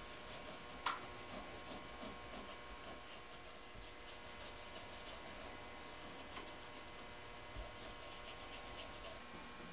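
Faint rubbing of a dye-soaked applicator over leather pieces, with one sharp click about a second in, over a steady hum.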